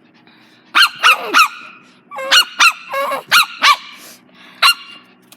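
A dog barking repeatedly: about ten short, high, yappy barks, several in quick runs.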